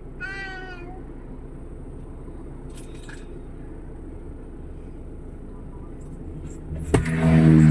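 Steady low rumble of a vehicle on the move, with a short high call near the start. About seven seconds in there is a click, and a much louder, steady low hum begins.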